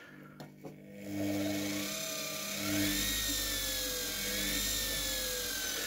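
Washing-machine motor starting up on a mains speed controller and running free, its whine rising in pitch as it speeds up about a second in, then wavering and slowly falling as the speed is changed. A few small handling clicks come just before it starts.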